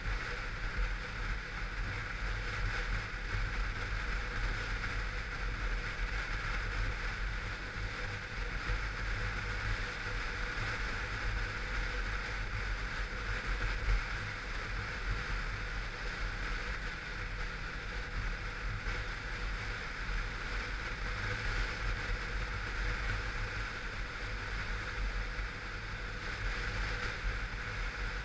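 Kawasaki Versys 650's parallel-twin engine running steadily while the motorcycle is ridden, with a steady hiss over it.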